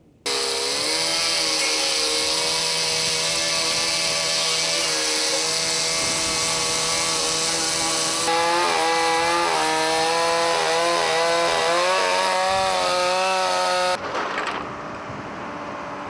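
Homelite chainsaw cutting into the wooden hull of an old fishing boat as it is broken up. The engine note wavers and shifts as the saw works in the cut. It cuts off suddenly about fourteen seconds in, leaving a quieter steady mechanical noise.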